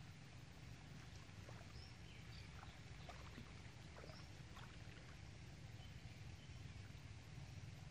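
Faint lakeside ambience: a steady low rumble, with a few faint, short, high chirps from birds.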